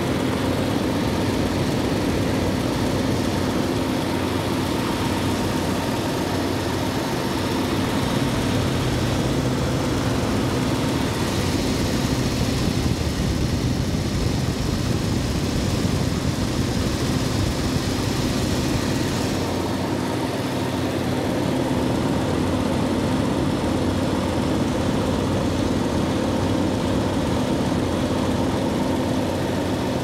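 A 1993 Jeep Grand Cherokee's 4.0-litre inline-six idling steadily, run after a fuel rail connector repair.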